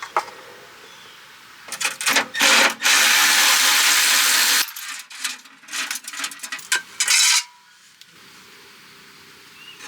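Metal hand tools clinking and scraping against metal while the engine oil drain is being set up. In the middle comes a steady rushing noise lasting about a second and a half, with more clinks and scrapes after it.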